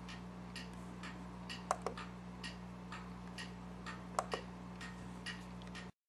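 Faint, fairly regular ticking, about two ticks a second, with a few louder ticks, over a steady low hum.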